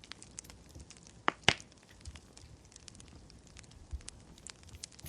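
Wood fire crackling with scattered small pops, and two louder sharp clicks close together about a second and a half in.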